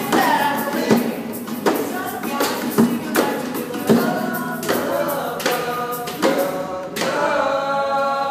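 Live singing of a pop song over a steady beat of percussive hits, about one every three-quarters of a second, with a tambourine-like jingle; about seven seconds in, the voices settle into a long held note.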